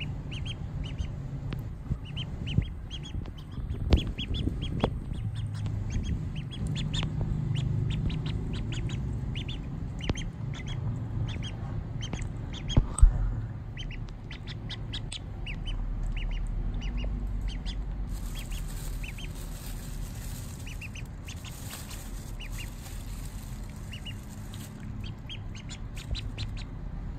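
Duckling peeping over and over in short, high cheeps, with a few sharp knocks, the loudest about 13 seconds in.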